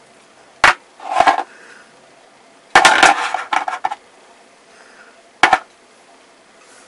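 Sharp metallic taps and clinks of a seasoning shaker against a stainless steel mixing bowl as seasoning is shaken in: a single tap, a short clatter, a quick run of taps about three seconds in, and one more tap near the end.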